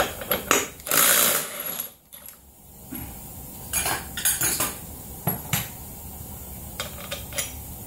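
Small loose metal parts, the axle nut, washers and impact socket, clinking and rattling as they are handled, with a short loud burst of noise about a second in.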